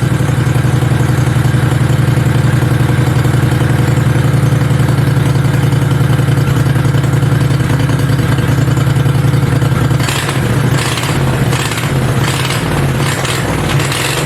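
Mini bike's V-twin engine running steadily at idle, then about ten seconds in its note starts rising and falling with the throttle.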